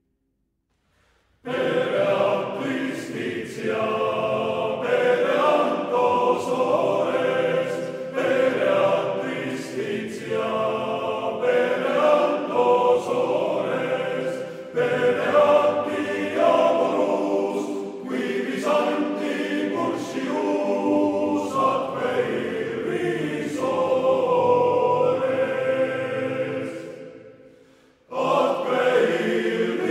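Men's choir singing an Estonian student song in several parts. A new verse starts about a second and a half in, after a short silence. Near the end the singing fades to a brief pause and starts again.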